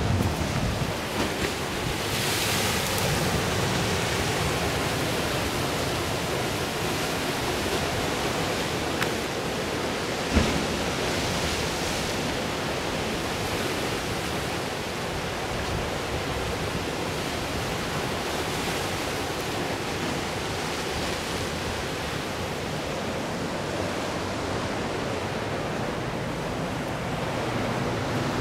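Sea surf washing on a rocky shore: a steady rushing noise that swells and eases, with one sharp knock about ten seconds in.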